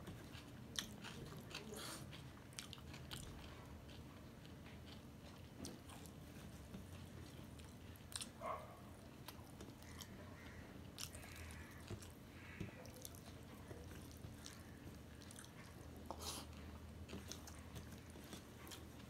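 Soft chewing and mouth sounds of a man eating rice by hand, with scattered light clicks and smacks as his fingers work the rice on a steel plate.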